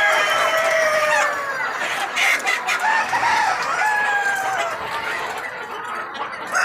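Several desi roosters crowing over one another, long drawn-out calls overlapping, with chickens clucking among them; a fresh loud crow begins near the end.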